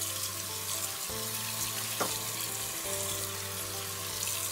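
Tap water running steadily onto mixed lettuce leaves in a plastic salad spinner basket, splashing into a stainless steel sink as the greens are rinsed.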